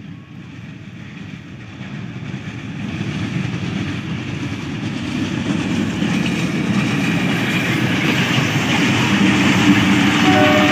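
Diesel-locomotive-hauled train approaching on the rails and growing steadily louder, with wheels clattering over the rail joints.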